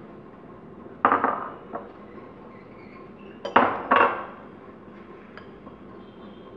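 Clinks of glass and a metal spoon against a glass mixing bowl as desiccated coconut is tipped in and folded into beaten egg whites: a cluster of clinks about a second in, a louder pair about three and a half seconds in, and a faint tap near the end.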